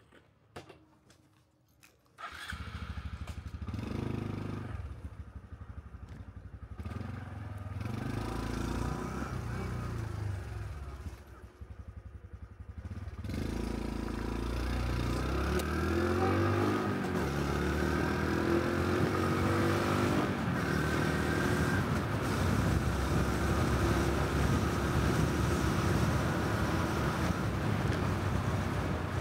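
A Honda 125 cc Cub-series single-cylinder motorcycle engine starts about two seconds in and runs at low speed, then pulls away, rising in pitch as it speeds up, and settles into steady riding.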